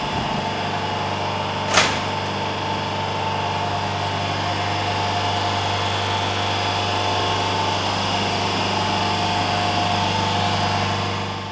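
Passenger train standing at a station platform, its machinery humming steadily: a low drone with a steady higher whine over it. One sharp knock about two seconds in.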